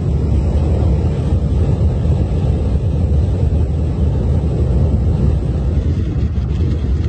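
Steamboat Geyser erupting: a loud, steady, deep rush of venting steam and water that sounds like a jet.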